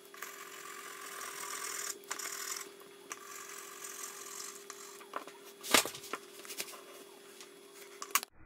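Graphite pencil scratching across drawing paper in stretches of shading strokes, with a steady hum underneath. A single sharp knock comes a little before six seconds in.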